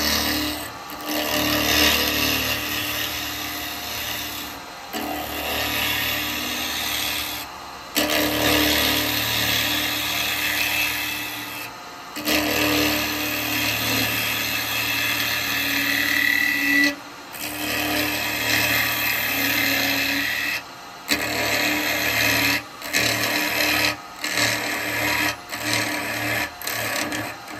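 Wood lathe spinning an alder blank while a spindle gouge cuts into its end face: a steady hum under a rushing scrape of cutting. The cut breaks off briefly several times and comes in short, choppy passes near the end.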